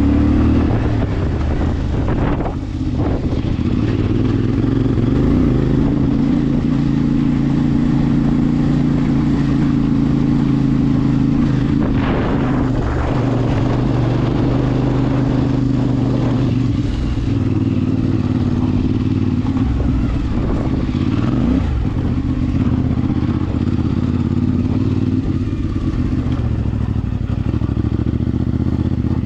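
CFMOTO 450MT parallel-twin engine running through its stock exhaust at a steady engine speed, with small rises and dips in revs.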